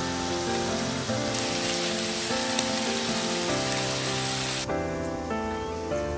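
Food sizzling steadily in hot cooking oil under instrumental background music of sustained notes. The loud sizzle cuts off abruptly about four and a half seconds in, leaving the music with a fainter crackle.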